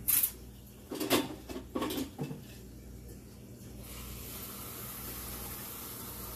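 A few knocks and clatters of kitchenware being handled, then water running steadily for about three seconds before stopping, as water is measured out for flour batter.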